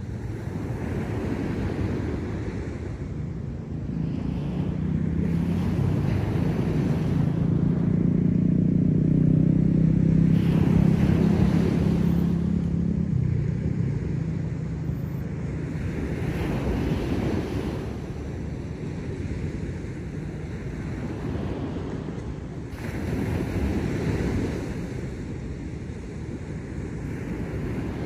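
Ocean surf breaking and washing up a beach in slow, repeated swells. A faint low drone rises and fades under the waves in the first half.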